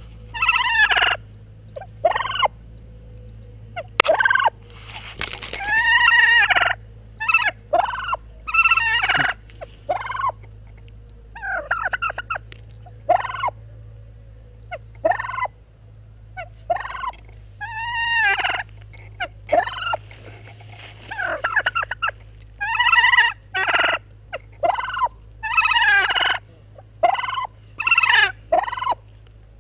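A tom turkey gobbling over and over, short loud calls coming every second or so.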